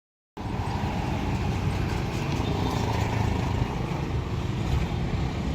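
Steady background rumble with a hiss over it, starting abruptly just after the audio begins.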